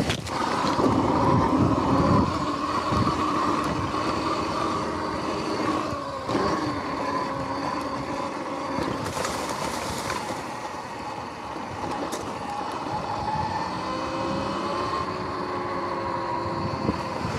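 Sur-Ron X electric dirt bike riding, its motor and drivetrain whining in pitch that rises and falls with speed. Heavy tyre rumble over rough ground in the first few seconds.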